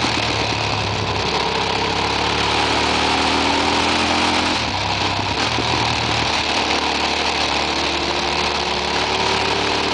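Motorcycle engine pulling at road speed, its pitch climbing, with a short drop about halfway through before it climbs again, over heavy wind rush on the microphone.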